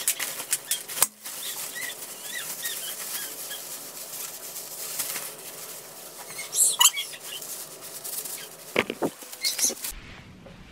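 Rustling and crinkling of a thin windbreaker jacket as it is pulled on and the hood is adjusted, with scattered sharp crackles. It stops abruptly near the end.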